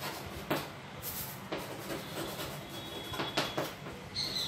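Chalk writing on a blackboard: a series of short scratches and taps as the chalk strokes and lifts from the board.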